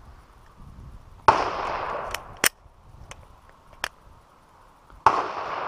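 Two shots from a Glock 22 .40-calibre pistol, about a second in and again near the end, each a sharp crack that trails off over most of a second. Fainter sharp cracks fall between them.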